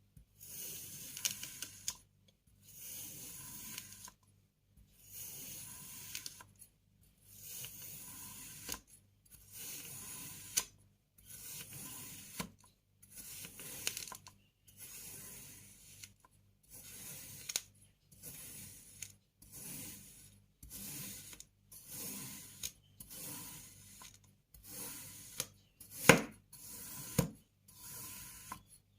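Kinetic sand being cut with a knife, one crunchy slicing stroke after another, each about a second long with short pauses between. A few sharp clicks near the end.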